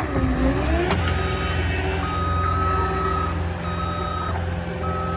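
A skid steer's engine runs hard while pulling a stuck machine out of deep snow. Its pitch dips and comes back up in the first second. A backup alarm beeps on and off several times over it.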